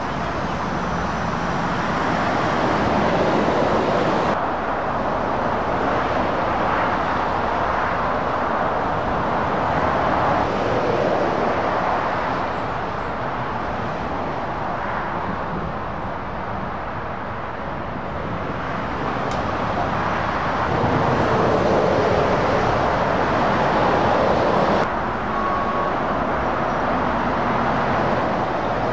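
Road traffic passing: lorries and cars going by one after another, tyre and engine noise swelling and fading as each passes. The sound changes abruptly twice.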